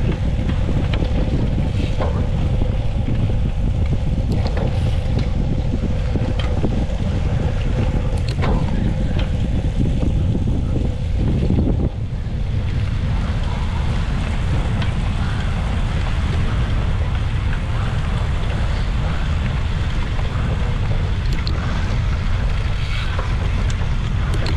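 Wind buffeting the microphone, a heavy steady rumble. A faint steady tone under it cuts off abruptly about halfway through.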